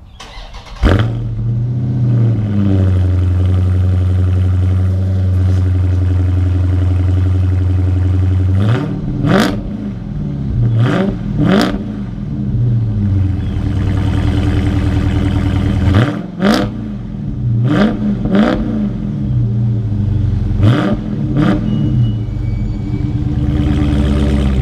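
A 2018 Dodge Charger R/T Scat Pack's 6.4-litre HEMI V8 cold-starting: it cranks and fires with a sudden burst just under a second in, then settles to a steady idle. From about nine seconds in it is blipped about eight times in small groups, each rev rising and falling quickly back to idle.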